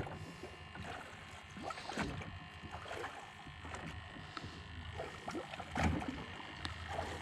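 Quiet ambience aboard a small fishing boat: a low steady hum with scattered faint knocks and clicks.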